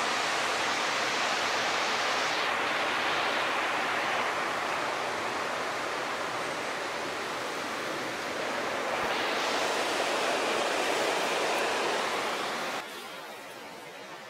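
Steady rush of a creek's flowing water below the bridge, which drops sharply in level near the end.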